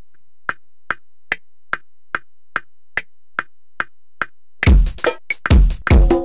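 Metronome count-in clicking at 145 BPM, about ten even clicks, then a drum-kit rhythm from a Kontakt 5 kit, driven by a Yamaha keyboard style, starts about four and a half seconds in, with a heavy bass drum.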